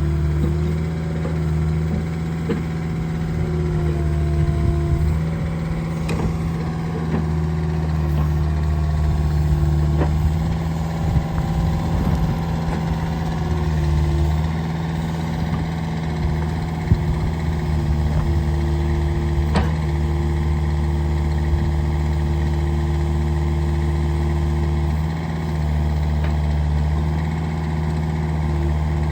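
Caterpillar 305E CR mini excavator's 40 hp diesel engine running steadily while the machine works its hydraulics, the engine note shifting a little as load changes. A few sharp knocks come through, about halfway in.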